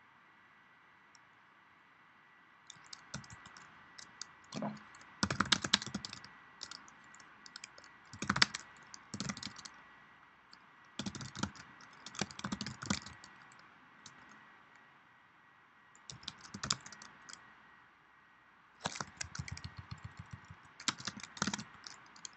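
Typing on a computer keyboard: bursts of quick keystrokes with short pauses between them, starting a few seconds in, as shell commands are entered.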